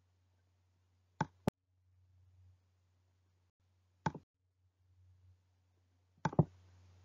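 Three sharp clicks about three seconds apart, the first a quick double and the last followed by a brief hiss, over a faint low hum that comes and goes.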